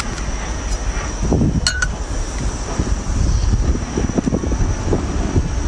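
Steady low rumble of wind on the microphone, with irregular crackles and knocks from about a second in and a sharp click partway through.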